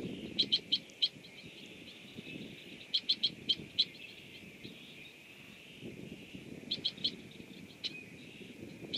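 Bird calls: short, sharp notes in quick bursts of four or five, heard at the start, about three seconds in and again about seven seconds in, over a steady patter of rain.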